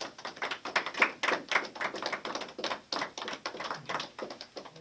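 A small group of people clapping, many quick, uneven claps that start suddenly and stop near the end.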